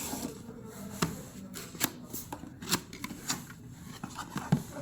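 Packaging of a boxed doorbell being handled and opened: irregular sharp clicks, taps and rustles, with one louder knock near the end.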